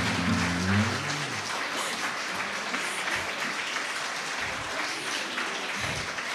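Audience applauding, with the last chord of an acoustic guitar ringing out and fading in the first second or so.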